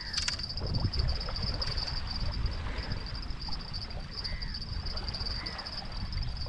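Crickets trilling steadily at a high pitch over a steady low rumble, with a few faint short rising-and-falling chirps.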